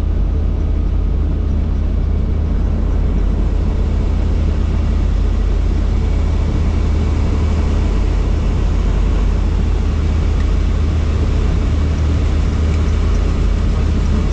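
Helicopter in flight or running, its rotor and engine making a loud, steady drone that is heaviest in the deep bass.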